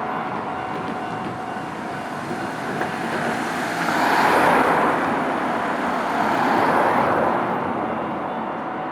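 Road traffic driving by: a steady rush of tyre and engine noise that swells as a vehicle passes about four seconds in, and again with a second one about seven seconds in.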